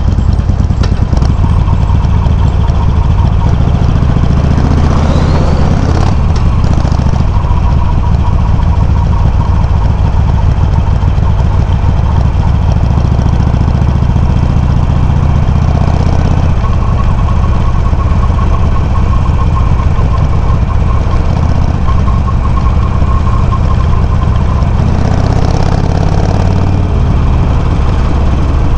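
Harley-Davidson Sportster 883's air-cooled V-twin running loud and low through Customer slip-on exhaust tips with the baffles set low, recorded from a microphone mounted on the bike. The engine note shifts about halfway through.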